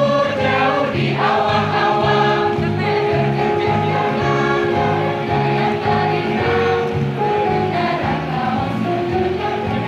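A mixed high-school choir singing an Indonesian regional song in sustained notes through microphones, with a steady low beat underneath.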